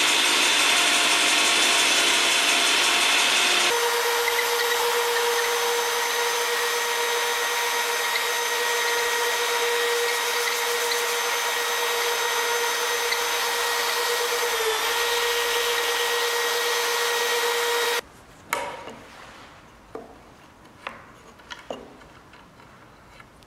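Compact tablesaw trimming a hinoki dowel as a Milwaukee hammer drill spins it. About four seconds in, this gives way to the drill's steady whine while sandpaper rubs against the spinning dowel, with one brief dip in pitch. Both stop abruptly about 18 seconds in, followed by a few light clicks and knocks as the dowel is handled in the wooden jig.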